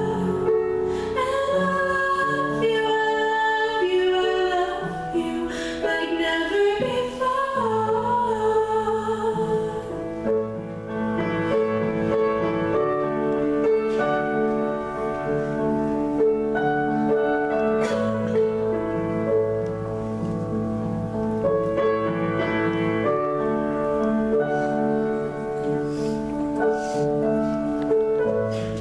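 A woman singing with piano accompaniment. Her voice ends about ten seconds in, and the piano plays on alone.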